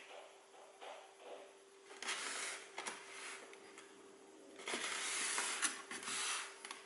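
Handling noise as a polystyrene mannequin head wearing box-style FPV goggles is turned round on a desk: soft scraping and rustling in two stretches, about two seconds in and again from about five seconds, with a few small clicks, over a faint steady hum.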